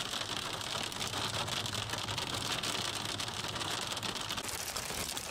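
Rain and hail hitting a car while it drives on a wet, hail-covered road: a steady hiss with a dense run of small hits, changing slightly near the end.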